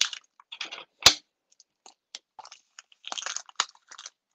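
Scissors cutting and a plastic deli cup and its plastic wrapping being handled: scattered crinkles and clicks, with one sharp snap about a second in and a burst of rustling near the end.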